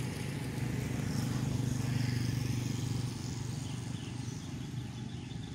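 A vehicle engine running with a steady low hum, a little louder about two seconds in. Faint bird chirps come through in the second half.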